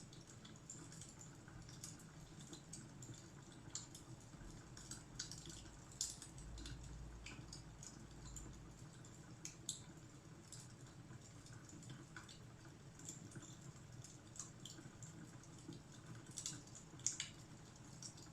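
Faint crackling of a wood fire: irregular small pops and snaps over a low steady hum.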